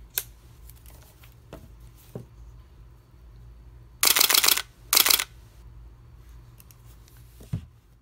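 Nikon F5 35 mm SLR's shutter and mirror firing in a rapid motor-driven burst of frames about four seconds in, then a second, shorter burst a moment later. A few single clicks come before and after.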